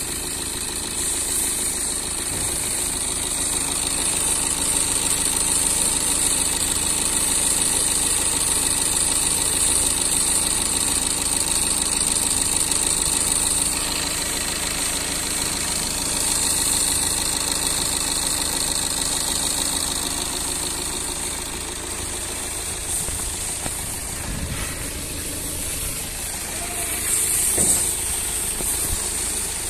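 Tata Altroz diesel's four-cylinder turbo-diesel engine idling warm with the bonnet open, a steady clattery idle, with one brief louder sound near the end.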